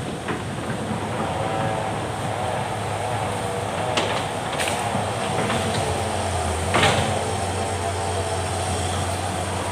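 Hitachi Zaxis hydraulic excavator running steadily as it swings and handles logs, its diesel engine humming under a hydraulic whine that rises and falls. A few sharp knocks come through, one about 4 s in and a louder one near 7 s.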